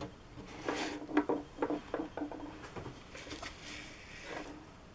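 Handling on a tabletop: a quick run of light knocks and taps, then a longer paper rustle as the painting sheet is slid and turned and a paper tissue is handled.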